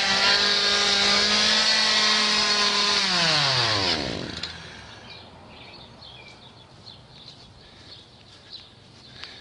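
Chainsaw engine running steadily at high revs, then winding down in pitch and stopping about three to four seconds in. Faint bird chirps follow.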